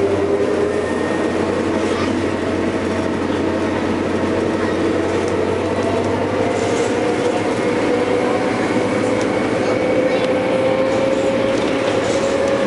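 New Flyer C40LF CNG bus in motion, heard from on board: its Detroit Diesel Series 50G natural-gas engine and Allison B400R transmission running, with a steady drone and a whine that slowly rises in pitch.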